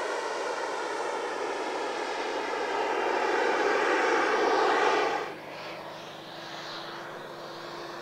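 Large-scale radio-controlled VC10 model airliner's engines running as it flies past, the rushing noise building louder. About five seconds in it drops off suddenly to a much quieter steady sound with one faint held tone.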